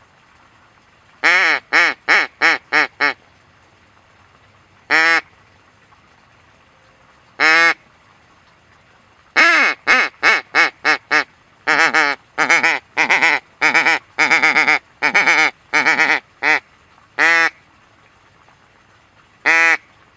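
Loud, close hen-mallard-style quacking. About a second in comes a run of six quacks, then single quacks around five and seven seconds, a long run of quacks for about seven seconds from the middle on, and two more single quacks near the end.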